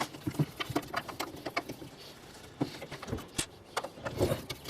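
Irregular small clicks and taps of a double-hung window latch's parts being handled and taken apart by hand.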